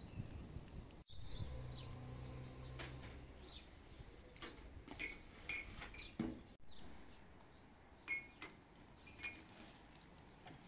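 Faint outdoor ambience: short bird chirps repeated through the second half, with a few light clinks and a brief low hum early on.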